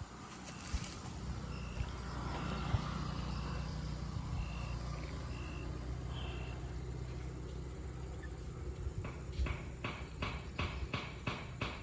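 A motor vehicle's engine running steadily, with a short high beep repeating about once a second over it. Near the end the engine fades and a rapid chirping, about four calls a second, takes over.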